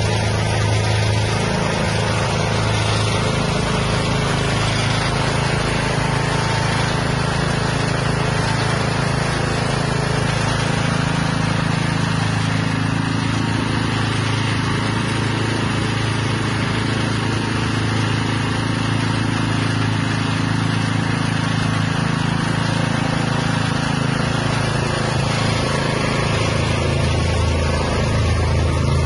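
Livestock feed mixer machine running steadily with a constant motor sound.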